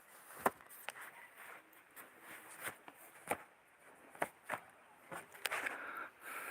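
Irregular sharp knocks and clicks, roughly one or two a second at uneven spacing, the loudest about half a second in.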